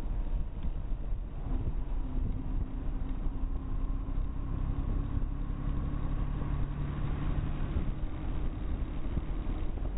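Motorcycle engine at steady cruising revs under heavy wind rumble on a bike-mounted camera's microphone; the engine note rises a little and holds, then fades near the end.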